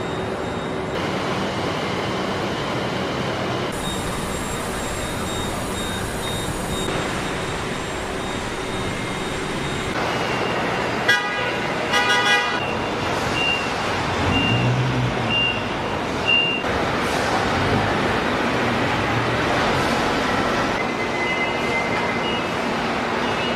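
Vehicle-assembly-plant noise: a steady wash of machinery and air. About halfway through, a vehicle horn toots in a few short blasts, followed by a high electronic beep repeating about once a second.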